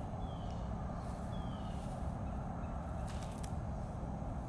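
Outdoor background noise, a steady low rumble, with a few short, high, falling bird chirps in the first second and a half and a brief run of faint crackles about three seconds in.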